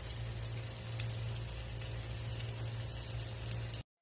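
Onions, tomatoes and garlic frying gently in a pan with a steady sizzle, over a steady low hum and a few faint clicks. The sound cuts off abruptly just before the end.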